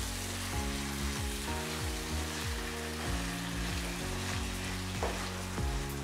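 Mutton in thick masala sizzling in a kadai as a wooden spatula stirs and scrapes ground spice powder through it, with background music of steady notes and a regular beat underneath.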